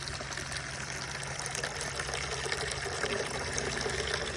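Water running steadily into a bucket as it is filled.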